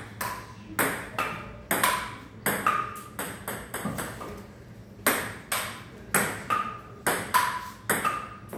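Table tennis rally: a plastic ping-pong ball clicking back and forth off the table and the paddles, each hit with a short ping, about two or three hits a second.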